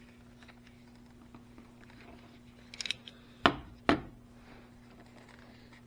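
Hand tools being handled while cutting and trimming battery cable: a brief rattle of small clicks, then two sharp clacks about half a second apart, over a steady low hum.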